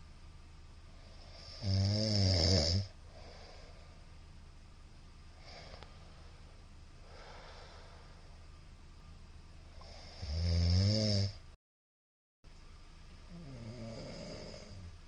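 A middle-aged man snoring in sleep: two loud snores about eight seconds apart, each lasting about a second, with soft breaths between and a quieter snore near the end. The sound drops out completely for under a second just after the second snore.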